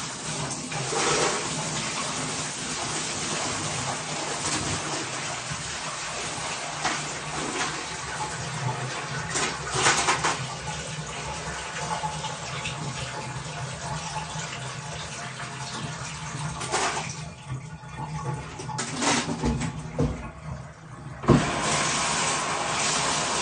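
Water pouring steadily out of a tipped glass aquarium into a bathtub, with a few knocks. The pour stops for a few seconds, then a steady rush of water starts again abruptly near the end.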